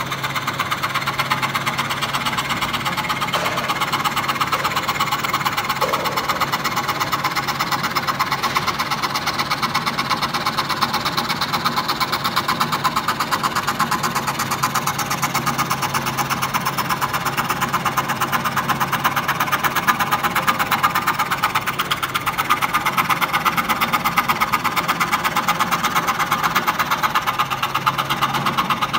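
Scroll saw running steadily, its blade stroking rapidly up and down as it cuts a circle through a block of wood, over a constant motor hum.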